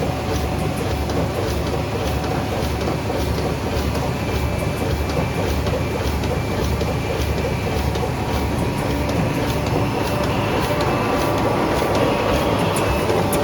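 Kruse Aster 2000 computer-programmed sewing machine running, a steady mechanical clatter of many quick clicks.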